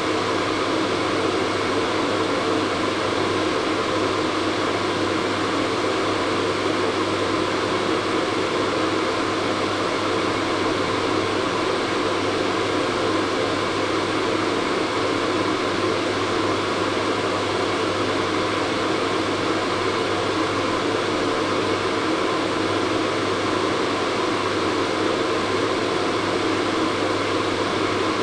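Hair dryer running steadily: a constant rush of blowing air over a low motor hum.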